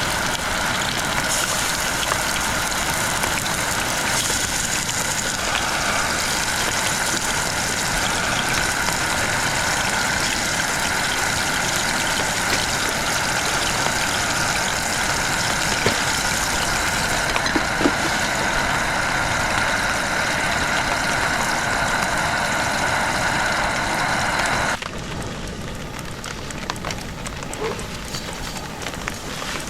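Heavy rain falling steadily as a loud, even hiss; about 25 seconds in it cuts abruptly to quieter rainfall with a few scattered drops.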